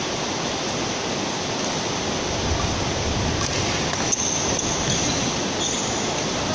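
Steady rushing background noise in a badminton hall, with a sharp racket hit on a shuttlecock about four seconds in and a couple of fainter clicks around it.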